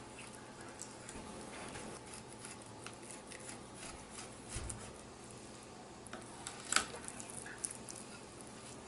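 Fillet knife slicing along a northern pike fillet and ticking and scraping against a wooden cutting board as the Y bones are cut out: faint scattered clicks, with a sharper click about two-thirds of the way in.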